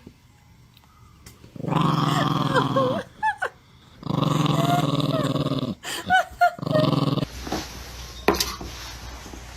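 A dog growling in two long stretches of about a second and a half each, followed by a few shorter growls. About seven seconds in, these give way to a low steady hum.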